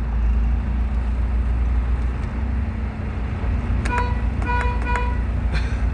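Truck engine running with a steady low rumble, and a few short horn toots about four seconds in.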